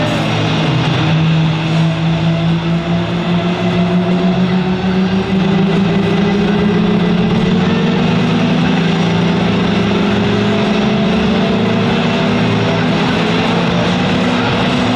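Blue Angels F/A-18 Hornet jet engine spooling up on the ramp during start-up: a whine that rises slowly in pitch over several seconds and then holds steady, with music in the background.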